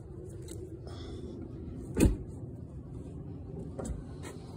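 Ford F-150 pickup door shut with one loud thump about two seconds in, followed by a lighter knock near the end.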